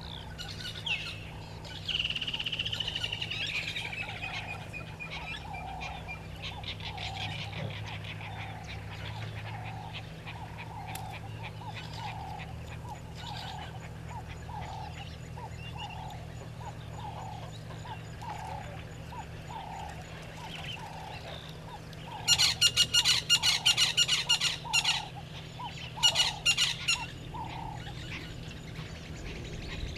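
Wild birds calling: a steady series of low falling notes, about one a second, with a falling whistle a couple of seconds in. Near the end come two loud bursts of rapid, sharp calls, all over a low steady hum.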